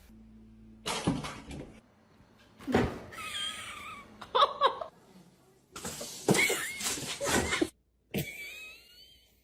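Several short, separate bursts of pet sounds, with cat meows among them, broken by brief silent gaps.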